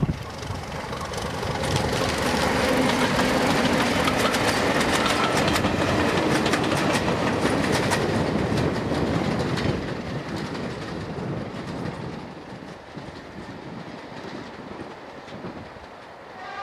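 BR Class 31 diesel locomotive 5580 (31162), with its English Electric 12SVT engine, passing with a train of coaches: engine note and clickety-clack of the wheels over the rail joints, building up over the first couple of seconds. It is loudest for several seconds, then fades away as the coaches recede.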